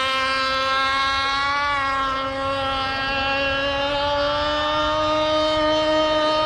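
Radio-controlled racing boat's small engine running at high speed on the water: a steady, high-pitched whine whose pitch creeps slightly upward.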